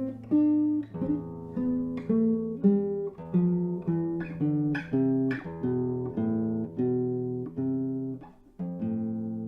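Solo Spanish guitar playing a dance piece: a plucked melody of about two notes a second over held bass notes. Near the end a chord is struck and left to ring, slowly fading.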